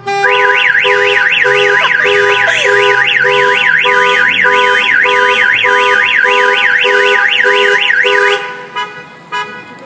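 Loud electronic siren wailing in a fast up-and-down warble, about four sweeps a second, over a pulsing two-note beep; it starts abruptly and cuts off suddenly near the end.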